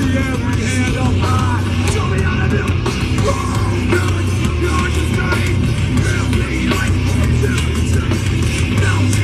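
Metalcore band playing live: distorted guitars, bass and drums with shouted vocals, heard loud from within the crowd.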